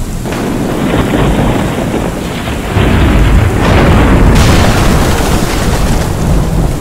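Thunderstorm sound effects for an animated logo: heavy rain with deep rolling thunder and booms, swelling about three seconds in with a brighter crack about four seconds in.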